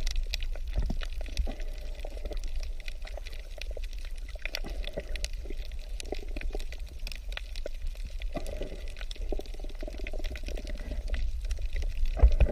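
Aquarium water bubbling and pouring, full of small pops and clicks over a steady low hum, with a louder bump near the end.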